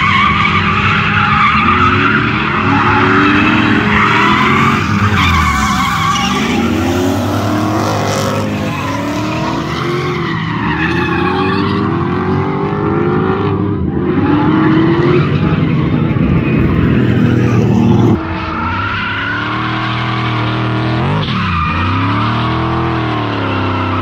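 Drift cars sliding in tandem, one a Nissan S13 with a swapped Lexus 3UZ V8: engines revving up and down hard over squealing, skidding tyres. The sound cuts to a different pass about eighteen seconds in.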